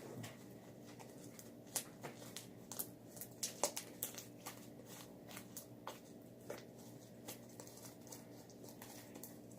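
Homemade slime being kneaded and pulled by hand, giving faint, irregular sticky clicks and crackles.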